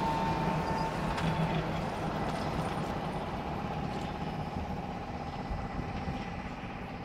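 Trolleybus driving by, a steady electric whine over tyre and road noise, slowly fading.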